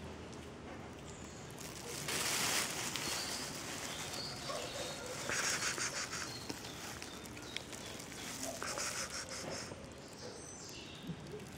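Quiet outdoor ambience with faint, scattered bird chirps, and two brief bursts of rustling noise, about two seconds in and about five and a half seconds in.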